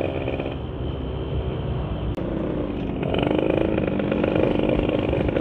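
Yamaha Sigma two-stroke motorcycle engine running, with a UMA 30 mm carburettor on a Kodok intake manifold; the engine note wavers slightly rather than revving hard.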